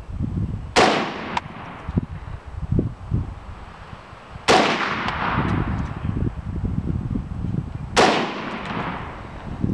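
CETME 7.62×51 (.308) battle rifle firing three single shots about three and a half seconds apart. Each shot is a sharp crack with a long echoing tail.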